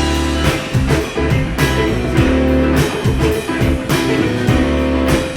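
Live band kicking into an instrumental groove in D right after a count-in: electric guitar, bass and drum kit playing a steady beat, no vocals yet.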